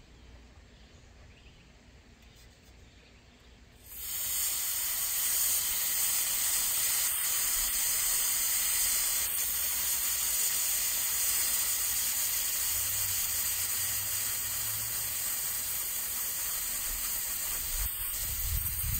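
Fuel gas hissing steadily from an inverted gas canister pressed onto the fill valve of a live steam locomotive's gas tank, filling the tank. The hiss starts suddenly about four seconds in and runs on unchanged.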